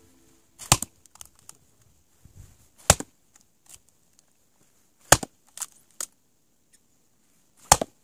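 Axe splitting firewood on a chopping block: four sharp chops, spaced about two to two and a half seconds apart, with lighter knocks between them.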